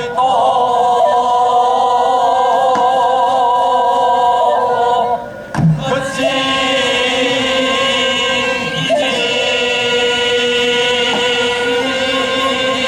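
Voices singing sijochang, Korean classical sung poetry, together in long held notes that bend slowly in pitch, with a short break about five and a half seconds in.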